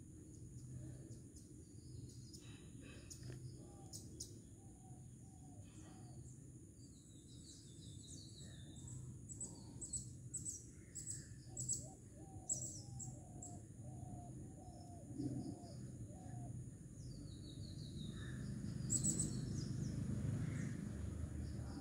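Birds chirping and calling in a series of short repeated notes, over a steady high-pitched whine and a low background rumble that grows louder near the end.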